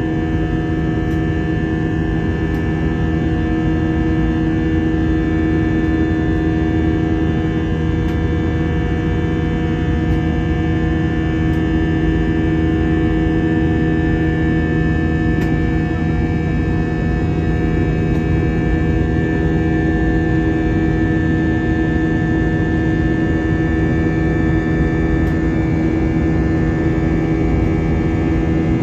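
Steady cabin drone of an Airbus A320's IAE V2500 turbofan engines in flight, heard from inside the passenger cabin: a constant hum with several fixed tones that holds level throughout.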